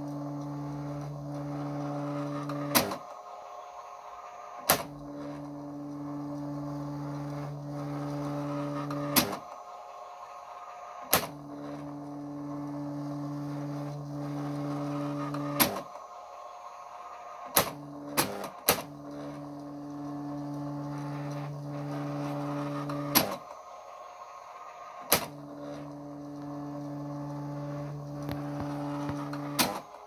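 Brother EP-44 printer/typewriter printing line after line: its thermal print head carriage runs along each line with a steady motor hum for about six seconds. Each line ends with a sharp click, a brief quieter pause and another click as the carriage returns and the paper feeds. The cycle repeats about four times.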